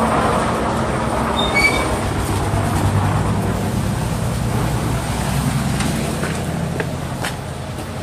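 Concrete mixer pump running with a steady low machine drone, growing a little fainter near the end. A few brief high chirps sound about a second and a half in.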